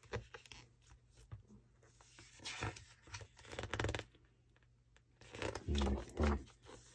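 A large page of a big hardback photo book being turned by hand, with paper sliding and rustling in two short bursts about two to four seconds in.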